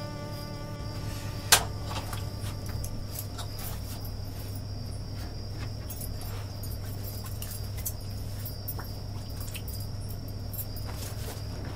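Night ambience of crickets chirping steadily over a low hum, with scattered small clicks and taps of objects being handled. There is one sharp loud click about a second and a half in.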